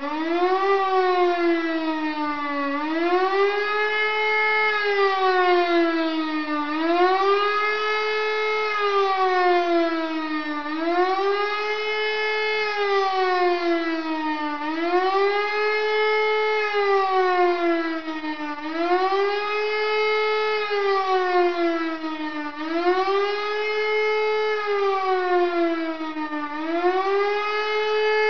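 E57 electric motor siren sounding the German 'Warnung' (public warning) signal. It spins up to full pitch in the first second, then wails up and down in a steady cycle of about four seconds, each rise holding briefly at the top before falling.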